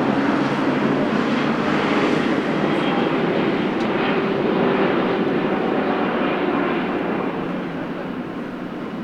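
Jet engine noise from a Boeing 777F freighter's GE90 turbofans: a loud, steady rushing that eases off over the last two seconds.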